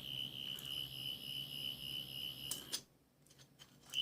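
Prototype sonic screwdriver prop switched on, its electronics giving a steady high-pitched electronic tone with a few faint clicks. The tone cuts out about three-quarters of the way through.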